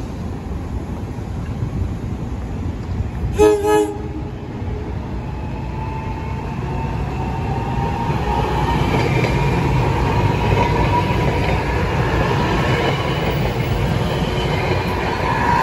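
An NJ Transit Arrow III electric multiple-unit train sounds two short horn blasts about three seconds in. Then its rumble and a steady whine grow louder as it approaches and runs past close by.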